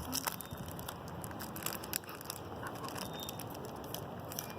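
Plastic wrappers crinkling and crackling as small packets are torn open, with many quick irregular crackles.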